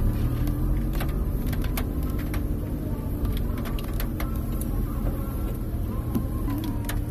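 Interior of a car driving on a wet road in heavy rain: steady low rumble of engine and tyres, with scattered sharp ticks of raindrops striking the roof and windshield.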